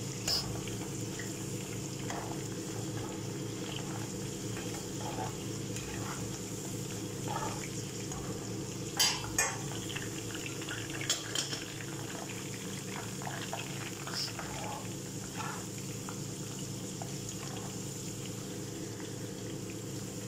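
Vegetable chunks frying in bubbling oil in a pan, a steady sizzle, with a metal slotted spoon clinking against the pan a few times, the loudest clinks about nine and eleven seconds in.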